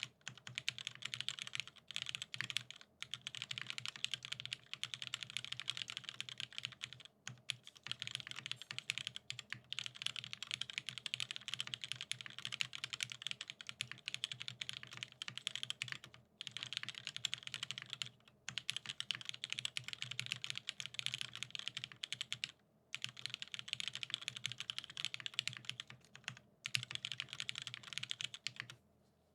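Rapid typing on a keyboard: long runs of fast keystrokes broken by brief pauses every few seconds, ending just before the close.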